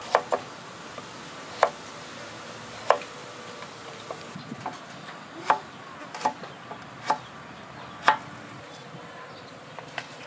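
Kitchen knife slicing a peeled carrot into sticks on a wooden chopping board: sharp knocks as the blade cuts through and meets the board, at an uneven pace of about one a second.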